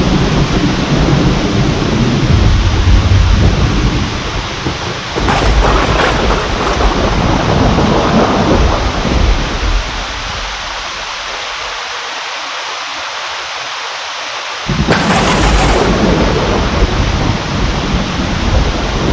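Heavy steady rain with rolling thunder. A fresh thunderclap breaks in about five seconds in and rumbles on. The thunder then dies away to rain alone for a few seconds before another sudden clap near the end.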